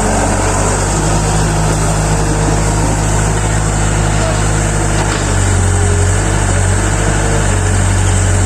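Excavator's diesel engine running steadily while it digs, with a noisy hiss over the low drone. The engine note grows heavier and a little louder about five seconds in.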